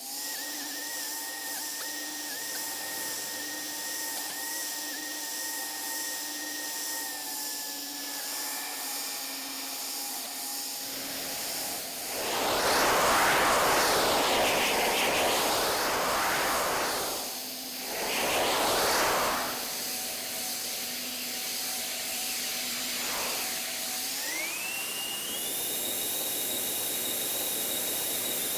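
Airplane engine and cabin noise, sped up: a steady hiss with humming engine tones, two loud surging whooshes near the middle, then the engine pitch glides up and holds near the end.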